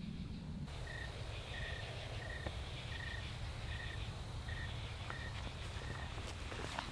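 A cricket chirping in an even rhythm, about eight short chirps roughly two-thirds of a second apart, over a steady low background rumble, with a few faint rustles near the end.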